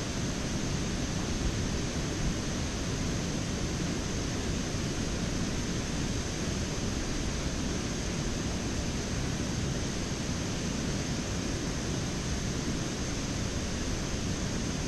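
Steady rushing noise of wind buffeting the microphone, with no other distinct sound.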